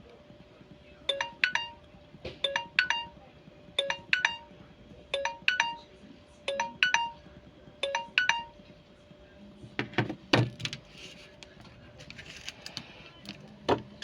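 Alarm tone playing a two-note chime, a lower note then a higher one, repeated six times about every 1.4 seconds before it stops about eight and a half seconds in. A few sharp knocks follow.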